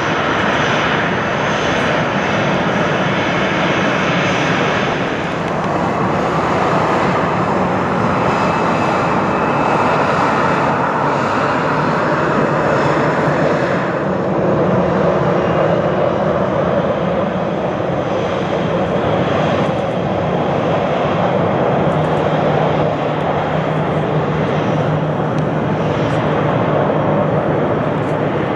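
Aircraft engines running loud and steady, a dense rushing noise with a faint low hum. About halfway through, the high hiss falls away and the noise goes duller.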